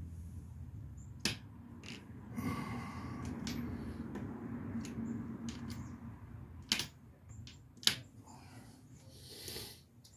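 Scattered sharp clicks and clinks of hand tools and metal parts being handled and set in place during reassembly, the loudest near the end, with a few seconds of rustling handling noise over a faint hum in the middle.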